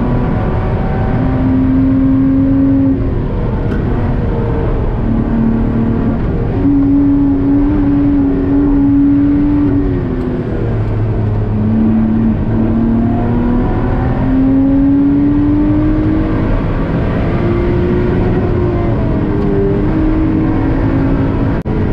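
Lotus Exige 350 Sport's supercharged 3.5-litre V6 at full throttle, heard from inside the cabin. Its pitch climbs and drops back repeatedly as it accelerates and is shifted through the gears, with a brief lift just before the end.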